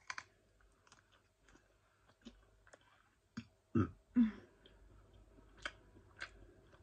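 Close-up mouth sounds of someone biting and chewing the chocolate shell of a Kinder egg, a scatter of small clicks and crunches. About four seconds in come two louder throat sounds from the mouth.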